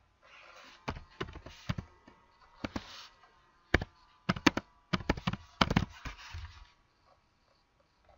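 Computer keyboard typing: irregular clicks of keys being struck, in short runs, thickest and loudest about four to six seconds in.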